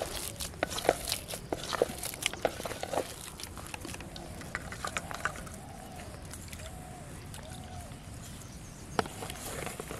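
Hands kneading a wet fish-bait mix in a metal bowl: a quick run of small clicks and squelches for the first few seconds, then quieter as the bait is tossed onto the pond, with one sharp click near the end.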